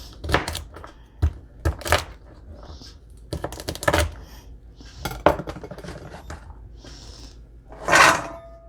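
Knife chopping long beans on a cutting board: irregular sharp knocks, a dozen or so, with a louder, longer scraping noise near the end.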